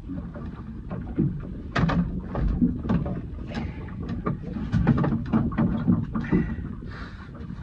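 Irregular knocks, clatters and rustling from a landing net and its long pole being handled in a small boat, with a ray just netted.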